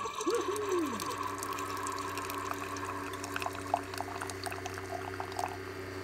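Keurig single-serve coffee maker brewing: a thin stream of coffee pours and trickles into a ceramic mug over the machine's steady hum, with small scattered drips.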